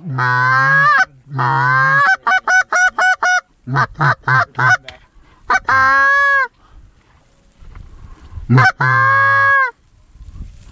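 Canada goose call blown by hand to a circling flock: loud, drawn-out honks, then a fast run of short clucks about five a second, more honks, and after a short pause one long honk near the end.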